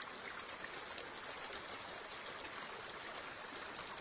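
Steady rushing hiss with light scattered crackles, like running water.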